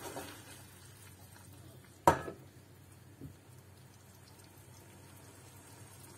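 A frying pan of simmering cream sauce being shifted on a gas stove's grate: one sharp knock with a short ring about two seconds in, then a softer knock about a second later, over the faint steady simmer of the sauce.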